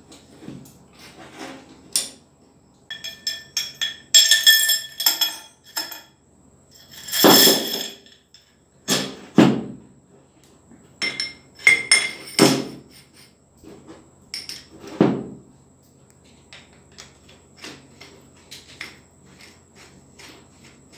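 Honda CD front fork parts being handled: metal clicks, knocks and clinks as the rod is worked inside the fork tube and parts are set on the board. There is a run of ringing metallic clinks about four seconds in, then several louder knocks.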